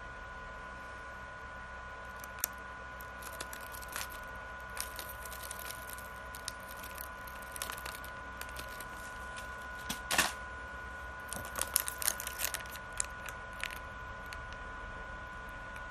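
Plastic snack packets being handled, crinkling and clicking in scattered short crackles that are loudest about ten to twelve seconds in. A faint steady high whine runs underneath.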